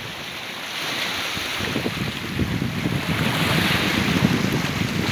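Sea waves breaking and washing in over shore rocks, a surge swelling about three seconds in, with wind buffeting the microphone.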